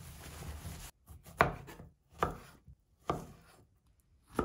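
Fresh strawberries being cut into quarters with a knife on a wooden cutting board. The blade knocks sharply on the board about once a second, four times. Before the first cut there is a soft rustle of a cloth towel patting the berries dry.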